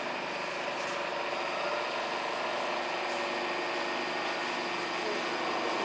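Riveting machine running with a steady mechanical drone and only a few faint clicks, with no riveting strokes.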